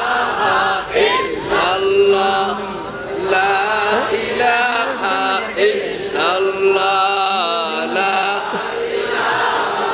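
Several voices chanting an Islamic zikr together, a continuous melodic chant that rises and falls with a wavering, drawn-out pitch.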